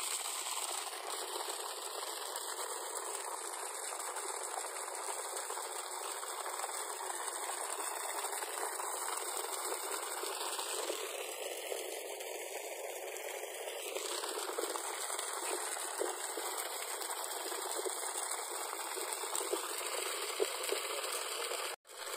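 Water gushing steadily from a newly installed borewell pump's discharge pipe: a continuous rushing, crackling noise.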